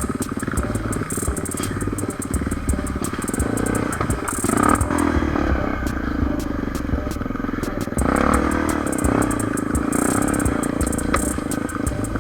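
Honda Tornado trail motorcycle's single-cylinder four-stroke engine running under way on a dirt trail, with the bike rattling over the ground. The engine gets louder twice, about four seconds in and again about eight seconds in, as the throttle is opened.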